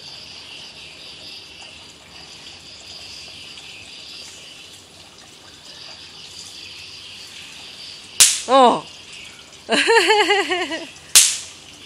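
Two sharp cracks of bang snaps (snap pops) bursting on asphalt, the first about eight seconds in and the second about three seconds later, with a voice calling out twice between them over a steady faint high hiss.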